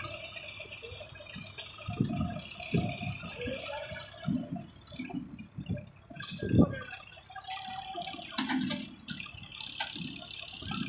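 Diesel engine of a JCB 3DX backhoe loader running some distance off, faint, with irregular low bumps over it.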